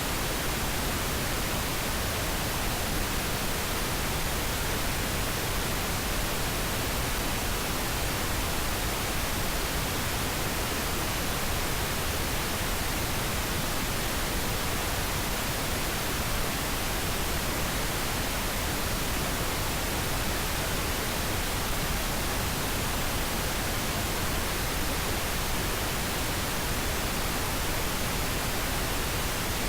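Steady synthetic pink noise: an even, unchanging hiss spread across all pitches, with no events or changes.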